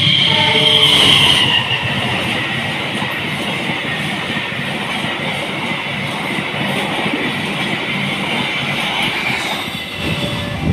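A passenger train rushing past close by: a steady rumble and rattle of wheels over the rails, with a high hiss during the first second or so, until the last carriage goes by near the end.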